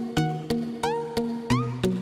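Background music with a steady beat of about three strokes a second and plucked-sounding notes, some sliding upward in pitch.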